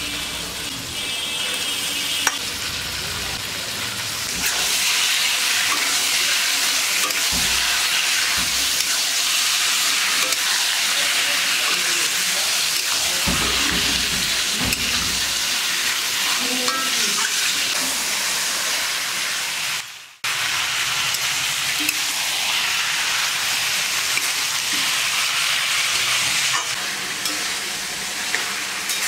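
Chicken pieces sizzling as they fry in a pan of spiced onion masala, a steady frying hiss. The sound breaks off for a moment about twenty seconds in and then carries on.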